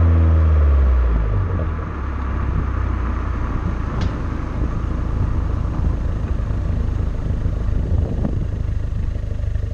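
Exhaust of a Peugeot 208 GTi's 1.6-litre turbocharged four-cylinder, the rear silencer removed and replaced by a straight pipe: the engine note falls as the revs drop in the first second and a half, then settles into a low, steady rumble with road noise as the car drives on.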